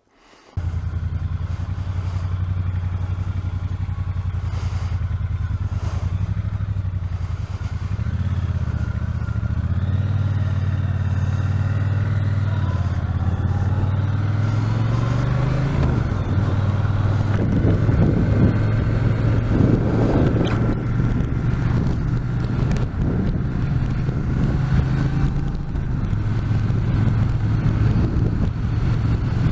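Triumph T120's 1200 cc parallel-twin engine running continuously, its pitch stepping up and down several times as the revs change.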